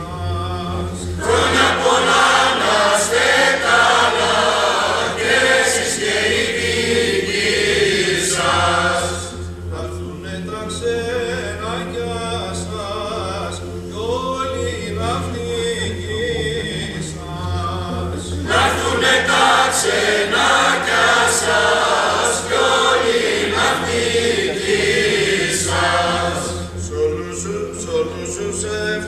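Mixed choir of men, women and children singing a Christmas song together, swelling louder in two long phrases with softer passages between.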